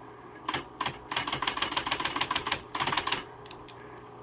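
A 1979 Smith-Corona Coronamatic electric typewriter being typed on: two single keystrokes, then a fast run of keystrokes lasting about a second and a half, a short burst more and a couple of last strikes, with the machine's motor humming low underneath.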